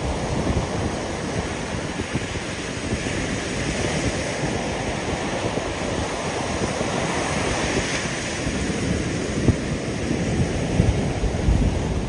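Surf breaking and washing up a sandy beach, a steady hiss that swells in the middle, with wind buffeting the microphone.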